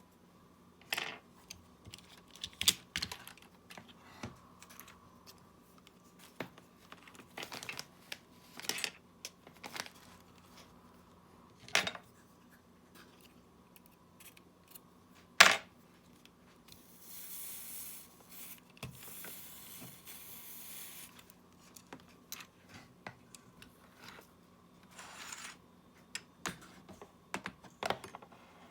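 Small metal tools and tiny parts clicking and tapping against a smartwatch case, at irregular intervals with one sharp click louder than the rest midway. A stretch of soft hissing scraping comes a little after it.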